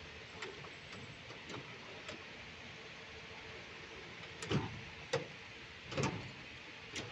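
Steel drawers of a roll-cab tool chest being worked on their slides: a few light metallic clicks, then four louder clunks as drawers are pushed shut.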